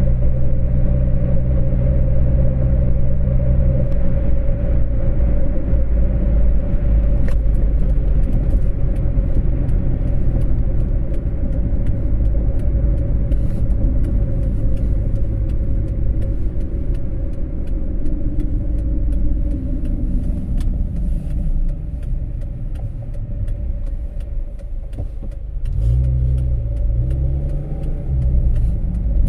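Car driving at speed heard from inside the cabin: a steady low rumble of engine and tyres with a constant hum above it. Near the end a low engine note rises and falls twice as the car nears a junction.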